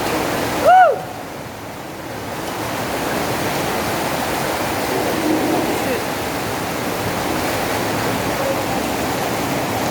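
Floodwater rushing steadily in a continuous wash of noise. About a second in, a short, loud vocal exclamation rises and falls over it.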